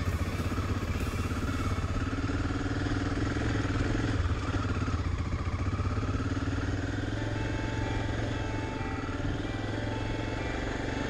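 BMW F650 Funduro's single-cylinder engine running steadily under way on a dirt track, its note wavering a little with the throttle.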